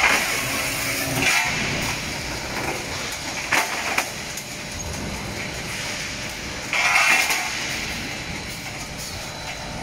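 Automatic sheet-metal shearing and stacking line running: a steady clattering machine noise with several short louder bursts of rushing noise and two sharp knocks about three and a half and four seconds in, the loudest burst about seven seconds in.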